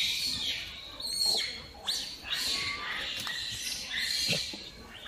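Macaques screaming: a run of high-pitched calls, several sliding down in pitch, with short breaks between them.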